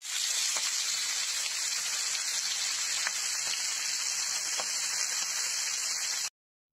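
Chicken legs sizzling in hot oil in a frying pan: a steady hiss with a few small pops of spattering oil. It cuts off suddenly near the end.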